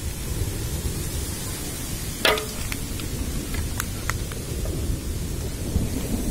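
Hail and rain falling in a hailstorm: a steady low noise of pelting, with a scattering of sharp clicks from single hailstones striking, the loudest a little over two seconds in.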